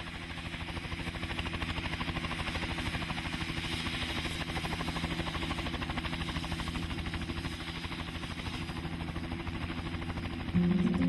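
Light helicopter running, a fast steady chop of the rotor blades over a low engine hum, growing a little louder over the first second or two. Music comes in near the end.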